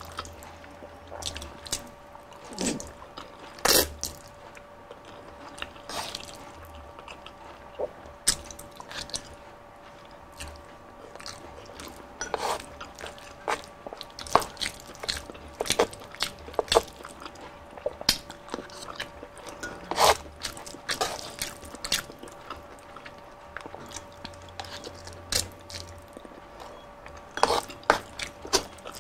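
Close-miked chewing and wet mouth sounds of someone eating palabok noodles, with many sharp, irregular clicks and smacks scattered through.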